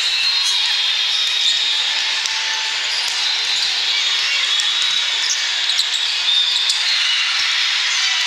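Busy indoor volleyball-hall din: many short high squeaks of sneakers on the court floors and scattered sharp slaps of balls being hit, over a steady wash of crowd noise echoing in the large hall.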